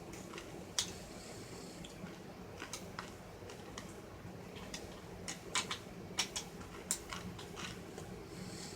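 Scattered small clicks and taps of radio parts being handled and fitted back into a car-radio housing, with a few sharp clicks about a second in and a cluster past the middle, over a steady low hum.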